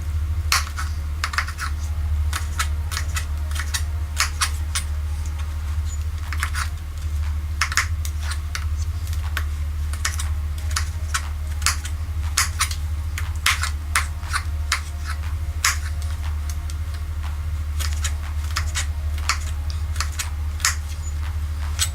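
Kitchen knife knocking on a cutting board while dicing tomatoes: sharp, uneven clicks about two or three a second, with short pauses, over a steady low hum.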